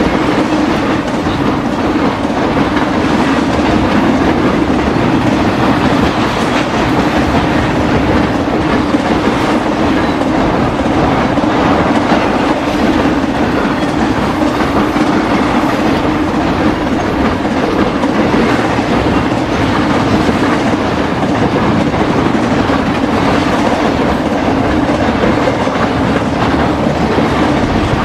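Long intermodal freight train of spine cars carrying highway trailers rolling past close by. Its steel wheels on the rails make a steady, loud din with a steady low hum in it.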